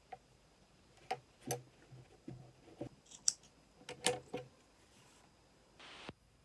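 Small objects handled on a hard surface: a run of light clicks and knocks, then a short rustle near the end.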